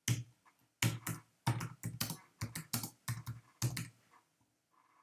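Typing on a computer keyboard: a quick, uneven run of keystrokes, more than a dozen of them, that stops a little before four seconds in.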